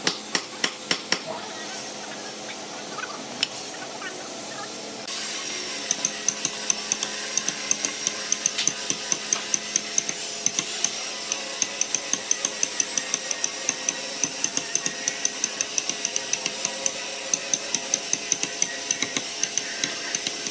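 Several hammer blows knocking the hardwood table frame together, then about five seconds in an electric hand sander starts and runs steadily over the wood, with a fast regular ticking.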